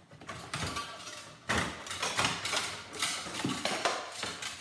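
White plastic parts being pulled and pried off a dehumidifier's copper-and-aluminium coil by gloved hands: irregular cracking, scraping and clattering knocks, busier from about a second and a half in.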